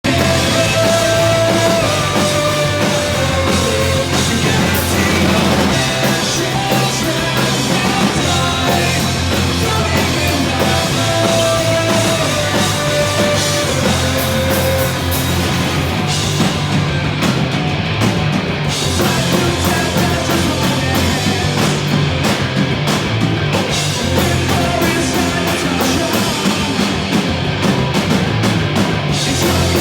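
Live rock band playing loudly: drum kit, bass and guitars, with a short melodic phrase standing out near the start and again about eleven seconds in.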